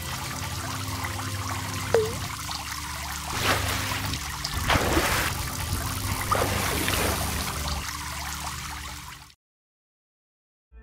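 Trickling, pouring water sound effect with a few louder splashes around the middle, over a low steady hum; it cuts off suddenly about a second and a half before the end.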